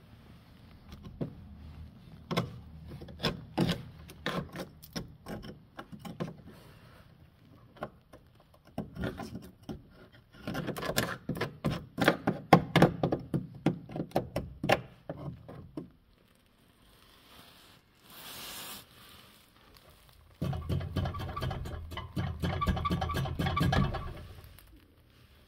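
Screwdriver tip poking and scraping at rusted underbody sheet metal, a rapid run of clicks and taps as it breaks into rust rot. It is loudest in the middle, and a dense rustle of scraping and handling follows near the end.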